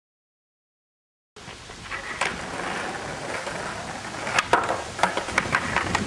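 Silence for about a second, then a skateboard rolling on asphalt, with a series of sharp clacks from the tail popping and the board landing during flatground tricks.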